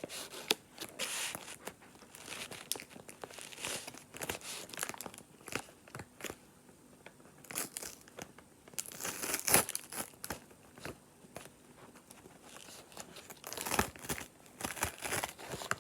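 Paper microwave popcorn bag crinkling and tearing as it is pulled open at the corners, in irregular rustles with louder bouts about nine and thirteen seconds in.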